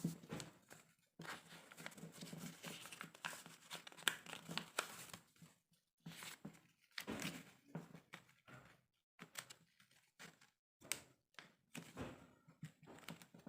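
Origami paper being folded and creased by hand: irregular, faint crinkling and rustling of the paper, with a few short pauses.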